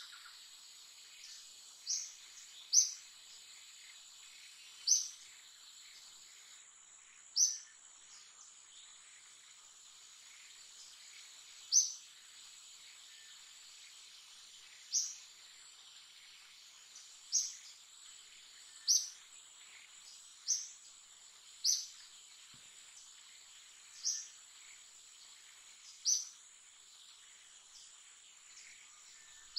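Steady high insect drone, with a short, sharp, high chirp that repeats irregularly every one to three seconds, about a dozen times.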